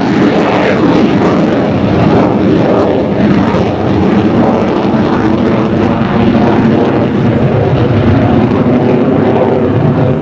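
F-14B Tomcat's twin General Electric F110 turbofan engines running: a loud, steady jet roar as the fighter flies its demonstration pass.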